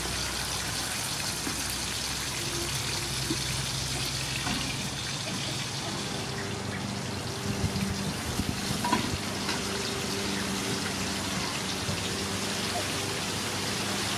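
Two whole fish frying in hot oil in a metal wok, a steady sizzling, with a few knocks about halfway through.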